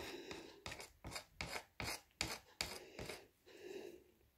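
Rhinestone strip being rubbed and pressed down by hand onto a glass pane: a run of short, quiet scraping strokes, about two or three a second.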